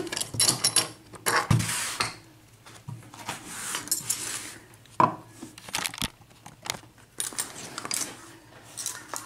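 Small metal clinks, clicks and scraping as lock-picking tools and a just-opened pin-tumbler cylinder lock are handled, with one sharp click about five seconds in.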